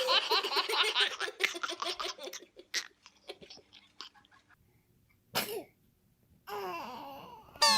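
High-pitched laughter in quick repeated bursts, fading out over the first two and a half seconds. It is followed about five seconds in by a single short sneeze, then another brief voice sound and a sudden loud noise at the very end.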